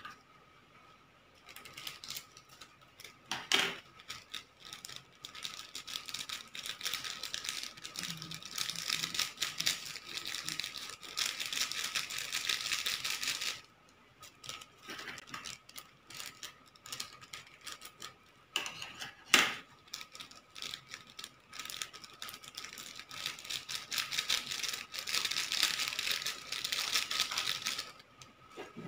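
Small foil seasoning sachets crinkling and rattling as they are handled, in two long stretches of rapid crackle with a short lull between them. A sharp knock about 19 seconds in is the loudest sound.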